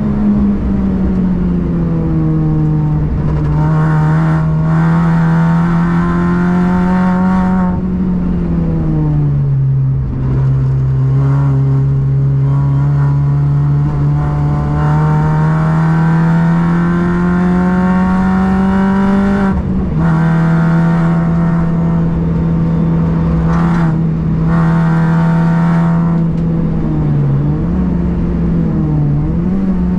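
Car engine running hard on a race circuit, its pitch climbing slowly and falling as the throttle and gears change, with a sharp drop about two-thirds of the way through and a few quick dips near the end.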